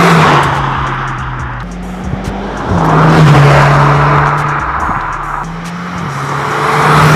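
Exhaust note of a Seat Leon Cupra ST 300 4Drive's turbocharged 2.0-litre four-cylinder through a Scorpion stainless-steel GPF-back exhaust, in three drive-bys. Each pass swells as the car comes close, then drops in pitch as it goes by: at the start, about three seconds in, and at the end.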